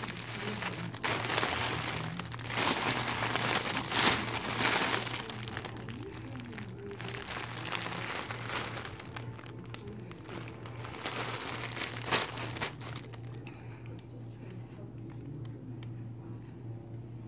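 Clear plastic jewelry bags crinkling as they are handled, in bursts during the first five seconds and again around eleven to twelve seconds in.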